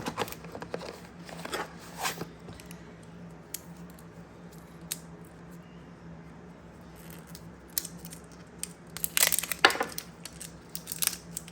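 Packaging being opened and handled by hand: tearing and crinkling with scattered clicks and taps, loudest about nine to ten seconds in.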